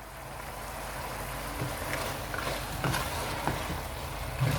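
Food sizzling in hot oil in a cooking pot, the hiss swelling over the first second and then holding steady, with a few light clicks of a stirring spoon against the pot.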